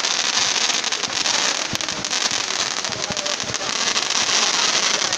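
Aerial fireworks going off in a dense, continuous crackle of many small pops, with a few deeper bangs scattered through it.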